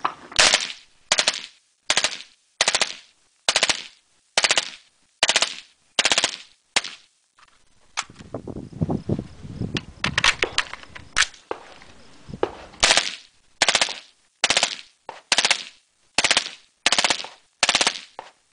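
Full-auto AR-15 firing short bursts through a Thunder Beast Arms 223P .223 suppressor, about one burst every three-quarters of a second, with a pause of a few seconds about halfway through before the bursts resume. The can is not rated for full-auto fire and is being run hard to see whether it holds up.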